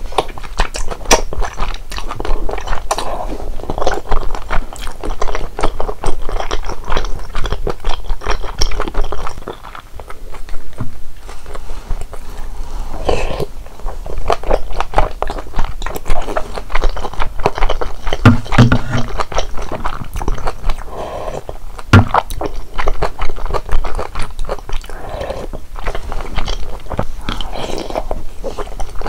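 Close-miked eating of malatang: steady wet chewing and biting, full of small clicks and crunches. There is a short lull about ten seconds in.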